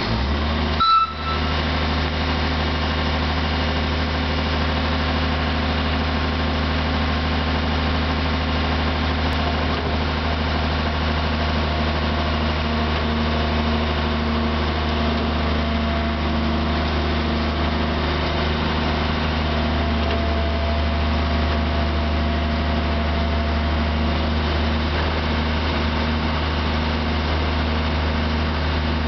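Narrow-gauge diesel locomotive's engine running steadily at an even, idle-like speed, with one short clank about a second in.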